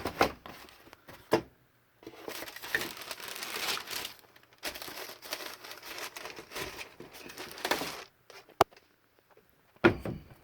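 Sneaker packaging crinkling and rustling in two long stretches while a pair of shoes is unwrapped, with a few sharp knocks at the start and near the end.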